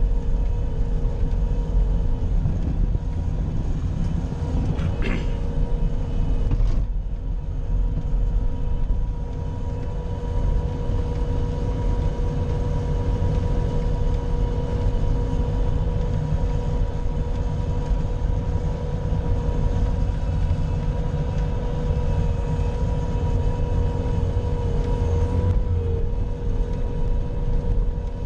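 Bobcat skid steer's diesel engine running steadily under load while plowing snow, a deep rumble with a steady whine over it.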